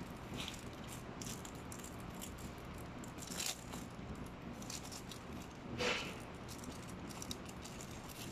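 Thin plastic wrapping crinkling and rustling in short irregular crackles as a plastic-wrapped packet is handled and opened, with two louder crackles about three and a half and six seconds in.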